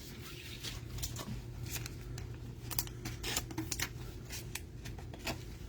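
Trading cards being handled: scattered light clicks and slides of card stock, over a steady low hum.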